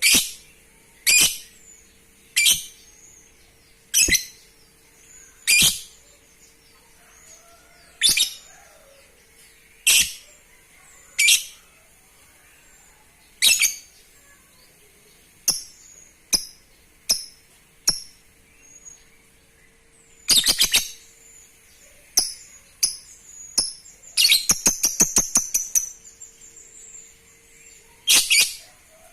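Lovebird giving short, sharp, shrill calls about every second and a half, then quicker ones, breaking near the end into a fast rattling trill of about two seconds.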